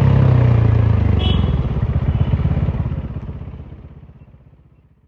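Bajaj Dominar 400's single-cylinder engine running through an exhaust with no muffler. It drops from a steady drone to a slow, lumpy beat of separate firing pulses about a second in, then fades away toward the end.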